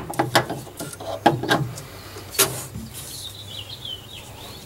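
Sharp metal clicks and knocks of a wrench working a fuel-line fitting, a cluster in the first two seconds and one more about two and a half seconds in. A few faint high chirps follow near the end.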